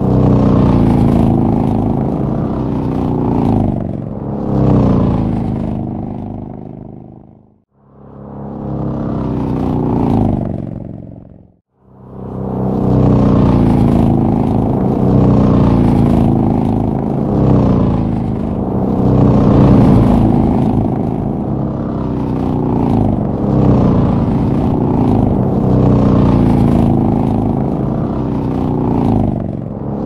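Motorcycles passing one after another on a freeway, their engines falling in pitch as each goes by. The sound dies away briefly twice, about eight and twelve seconds in, before more bikes keep passing.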